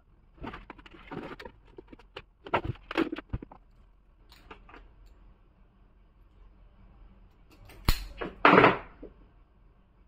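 Hands handling cable and parts on a relay wiring board, making scattered clicks, rustles and taps. About eight seconds in there is a sharp click, followed by a louder rustle and knock.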